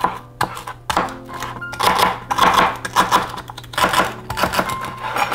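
Chef's knife chopping Swiss chard stems on a cutting board: a quick, uneven run of knife strikes against the board, with background music underneath.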